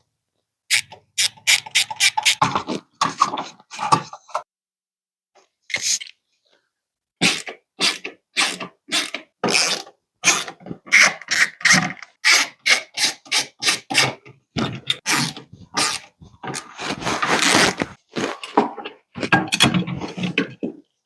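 Hands-on installation work: fast runs of sharp clicks and knocks with some scraping, broken by a few brief silences.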